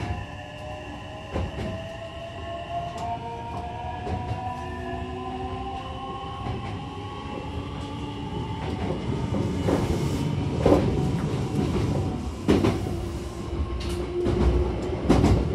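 Hankyu Takarazuka Line electric train pulling away, heard from inside the car: its motors whine in several tones that climb slowly in pitch as it gathers speed. From about nine seconds in, the running gets louder, with the wheels clacking sharply over rail joints a few times.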